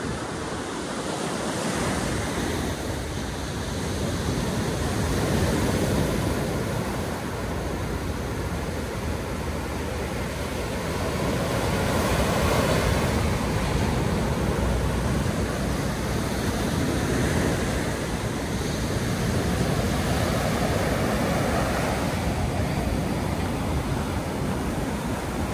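Small sea waves breaking and washing up a sandy beach, the surf swelling and easing in slow surges every several seconds.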